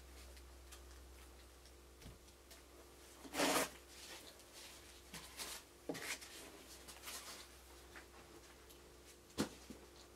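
Packing foam and cardboard box being handled: rustling, with one louder rustle about three and a half seconds in and a sharp knock near the end.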